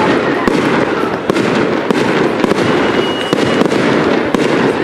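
Aerial fireworks display: a dense, continuous crackle of many small pops from bursting shells, with sharper bangs scattered among them.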